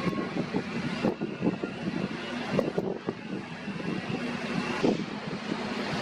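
Wind buffeting the microphone over a steady low mechanical hum, with irregular knocks and gusts.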